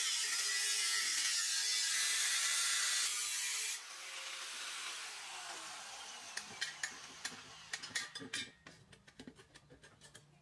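Angle grinder cutting through the top of a gas cylinder around its valve: a steady harsh grinding for nearly four seconds, then the grinder spins down with a falling pitch. After that comes a run of sharp metallic clicks and knocks as the cut-loose valve is worked free from the cylinder.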